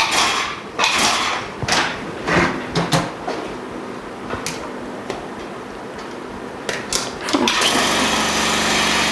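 Knocks and clatters of hose fittings being handled, then about seven and a half seconds in a vacuum pump motor switches on and runs with a steady hum, pulling vacuum so the laminator holds the LCD in place.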